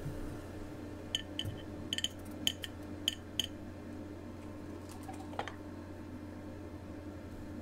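A quick run of about eight light, sharp ticks over a couple of seconds, then one softer tick a little later, over a steady low hum.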